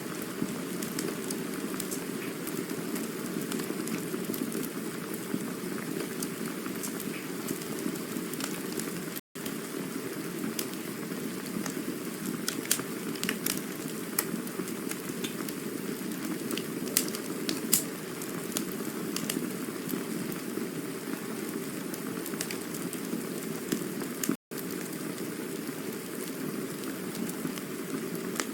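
Campfire burning with a steady hiss and scattered sharp crackles and pops. The sound cuts out for an instant twice.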